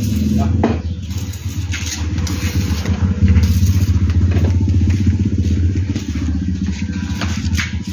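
An engine running close by with a steady low rumble that swells about three seconds in, with a few sharp clicks over it.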